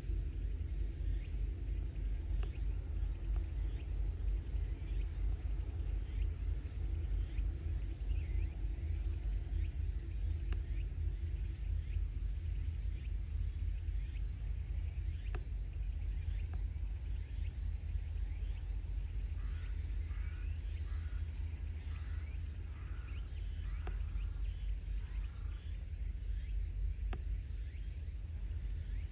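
Wind buffeting the microphone as a steady low rumble, with a run of short bird chirps about two-thirds of the way through and a faint high insect buzz that swells now and then.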